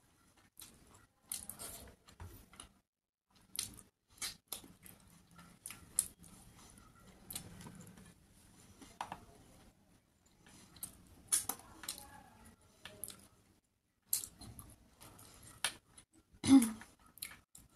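Eating sounds from a hand-eaten meal: scattered small clicks and taps as fingers mix rice and pick at fish curry on a plate, with mouth sounds of eating. A louder click comes near the end.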